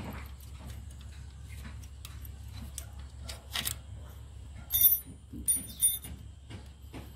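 Hands working on a brush cutter engine: scattered light clicks and taps as parts are handled, with two louder, short clinking rattles about five and six seconds in, over a steady low hum.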